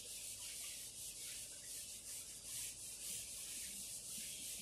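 Whiteboard duster wiping across a whiteboard in a faint run of repeated rubbing strokes.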